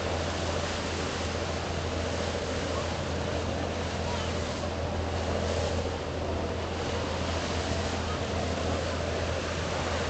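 Thames river-cruise boat under way: a steady low engine drone under the rushing of choppy water and the boat's churning wake, with wind on the microphone.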